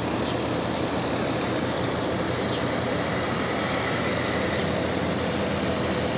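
Steady low engine drone of a large container ship passing close, under a constant rushing noise.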